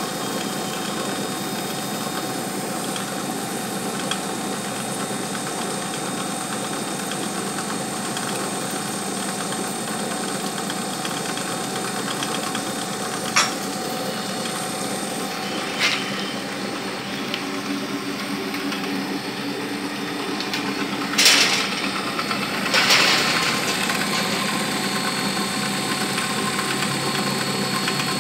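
Vertical milling machine running steadily, its spindle turning a cutter into a clamped metal plate under coolant, a constant hum and whine of motor and cut. A few short sharp clicks or knocks cut through, the two loudest about three quarters of the way in.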